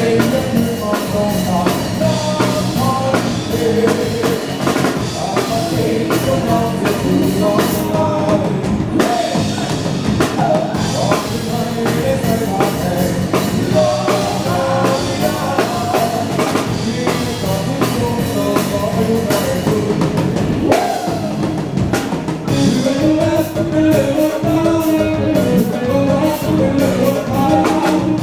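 A band playing an upbeat dance song: a singer over drum kit and guitar with a steady beat.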